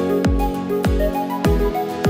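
Background electronic music with a steady beat: a deep kick drum about every 0.6 seconds under short repeated melodic notes.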